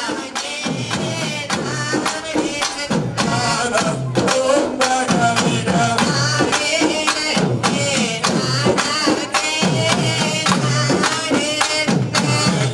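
Tamil folk song accompanying a Valli Kummi dance: a singer's voice over a steady drum beat.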